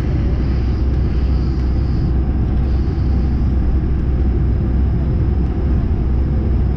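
Cabin noise of an Airbus A220-100 on the ground: a steady low rumble from its Pratt & Whitney PW1500G geared turbofans running at idle as the aircraft taxis slowly.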